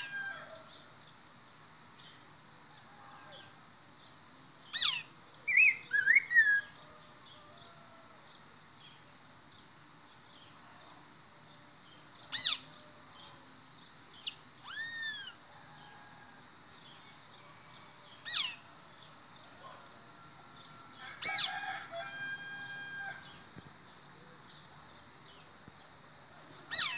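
Bico-de-pimenta (black-throated grosbeak) calling: five loud, sharp single calls several seconds apart, with a few short whistled notes after the first and a fast rattling trill after the third.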